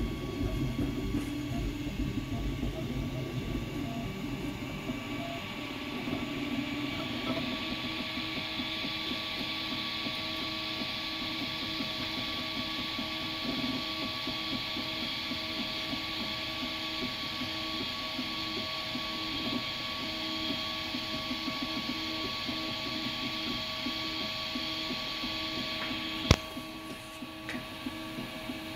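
Ultimaker 3D printer running a print: a steady mechanical whir with several held tones. A higher whine joins about a quarter of the way in and stops with a sharp click near the end, after which it runs quieter.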